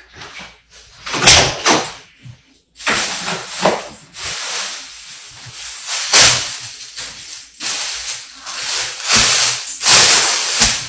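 Kitchen handling noises: a run of irregular knocks and rustling, hissy bursts as things are moved about while cooking, the loudest near the end.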